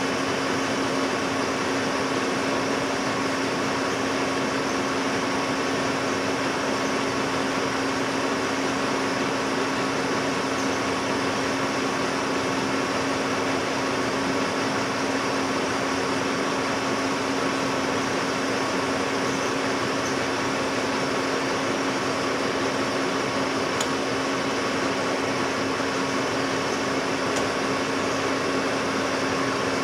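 Metal lathe running with a steady hum and a constant tone while a light spring cut is taken along a jack screw to check how much the work deflects.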